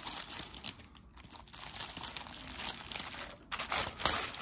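Clear plastic bag crinkling and rustling as hands open it and slide a cross-stitch canvas out, in irregular bursts with a quieter lull about a second in.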